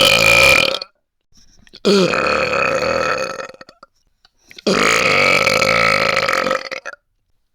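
A chair making long, burp-like creaks, each lasting about one and a half to two seconds with a steady pitch: one fades out just under a second in, another comes about two seconds in, and a third around five seconds in.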